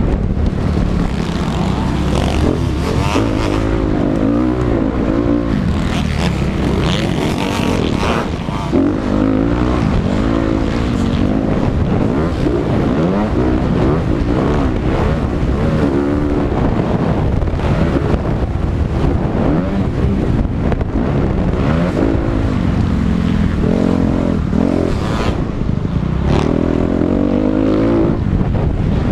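Motocross dirt bike engines racing, revving up and falling back again and again every second or two as the bikes run through corners, jumps and gear changes.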